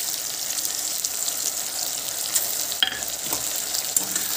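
Onion, tomato and green chilli sizzling in hot oil in a kadai, a steady hiss full of fine crackles, as ginger-garlic paste is poured into the oil.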